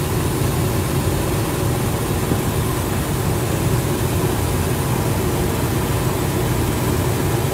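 Steady drone of a helicopter's engines and rotor, heard from on board, with an even hiss over it.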